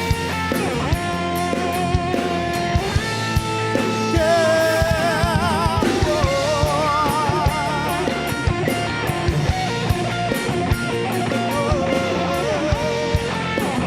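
Instrumental break of a rock band: an electric guitar solo with held, wavering vibrato notes over drum kit and bass.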